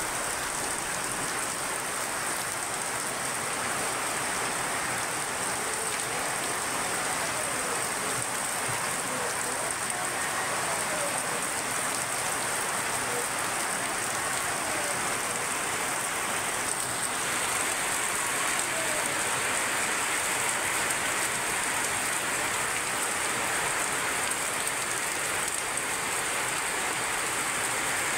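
Heavy rain falling steadily on corrugated roof sheets and a puddled yard, an even hiss that does not let up.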